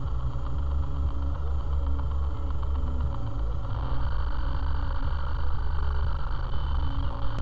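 Car engine and road rumble heard from inside the cabin while driving: a steady, deep hum with an even hiss over it.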